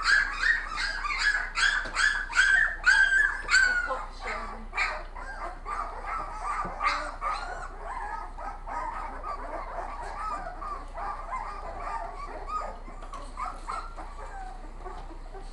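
A dog yapping sharply about twice a second for the first four seconds, then a litter of puppies whimpering and squealing over one another.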